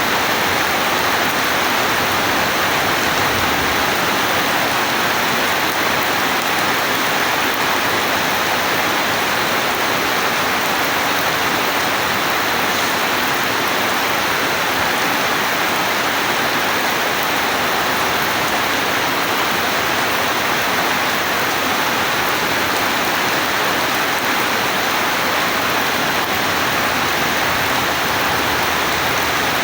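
Heavy rain falling steadily, an even, unbroken hiss with no thunder claps.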